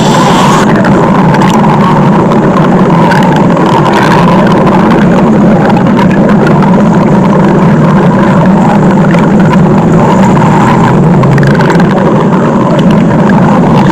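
A stomach growl sound effect: loud, low rumbling that carries on without a break.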